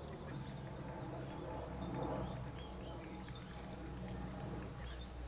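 Quiet woodland ambience: a steady high-pitched insect trill over a low hum, with a few faint short chirps.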